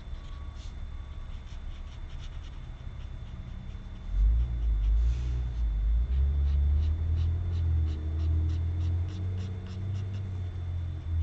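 Faint scratchy ticks of a brush marker being stroked across paper. About four seconds in, a louder low rumble sets in and carries on under them.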